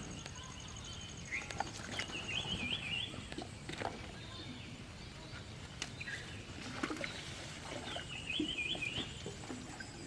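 A bird singing a short warbled phrase twice, about six seconds apart, over scattered small clicks and rustles.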